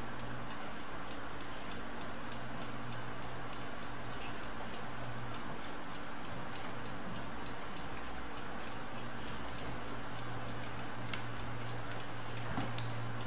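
Mechanical stopclock ticking steadily and rapidly, about five ticks a second, over a low steady hum, with a light knock near the end.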